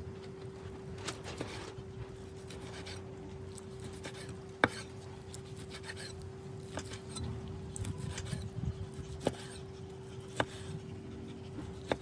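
A wide hand-forged knife slicing through grilled skirt steak on an end-grain wooden cutting board. Soft cutting and scraping sounds run throughout, and the blade knocks sharply on the board a few times, loudest about a third of the way in.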